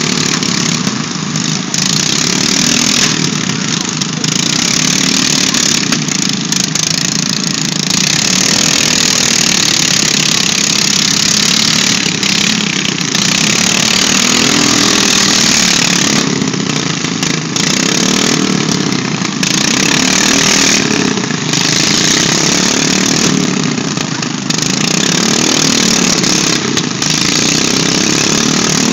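Lawn mower engines running loud and steady through a destruction derby.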